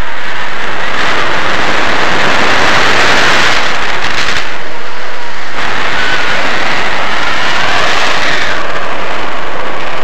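Loud, constant wind rushing over a helmet-mounted camera's microphone during a parachute descent, surging and easing in strength.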